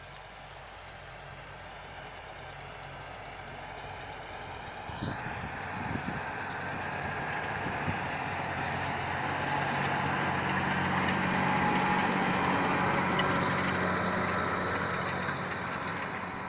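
John Deere tractor engine working under load as it pulls a Väderstad Carrier disc harrow, with the rush and rattle of the harrow's discs and packer going through the soil. It grows louder as the rig approaches, peaks about twelve seconds in, then eases off slightly.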